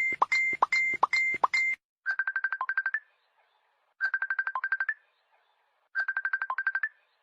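Electronic beeping. First a steady series of tones, about three a second, stops just under two seconds in. Then come three one-second bursts of rapid pips, about ten a second, each ending on a lower note, with a pause between bursts.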